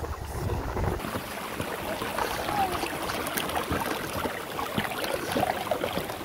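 Shallow stream running over rocks, with footsteps scuffing and knocking on the stream stones. Wind buffets the microphone in the first second.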